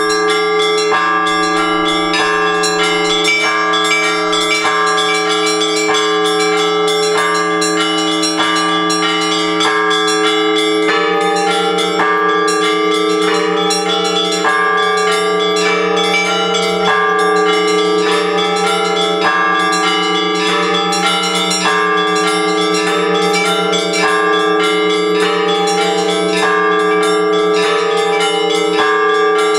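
Orthodox church bells rung together by hand: small, higher bells strike in a quick, steady repeating pattern over deeper bells that keep ringing underneath. The ringing pattern changes about eleven seconds in. It is the ringing that calls worshippers to the all-night vigil.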